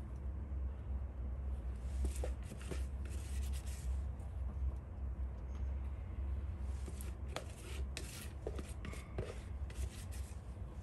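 Silicone spatula scraping sauce out of a mixing bowl and pushing cauliflower florets across a non-stick dehydrator sheet, in short irregular rubbing strokes, over a low steady hum.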